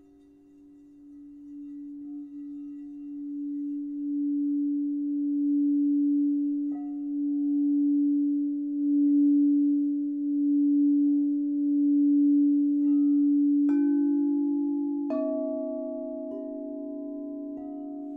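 Singing bowl sounding one steady low tone that swells and pulses in loudness as it is played. In the last few seconds several higher notes are struck one after another, about a second apart, each ringing on over the low tone.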